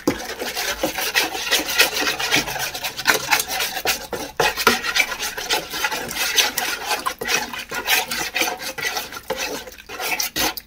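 Bicarbonate of soda and water being stirred into a paste in a bowl: a continuous, rapid scraping and rubbing that stops suddenly.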